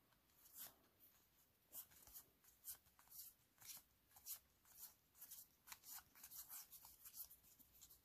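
Faint swishes and light clicks of trading cards being slid off a stack by hand, one after another at an uneven pace, coming more often toward the end.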